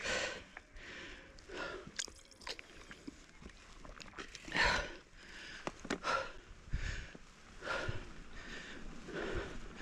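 Mountain biker breathing hard while riding, about one breath every second and a half. A few sharp clicks and rattles from the bike on the dirt trail come through as well.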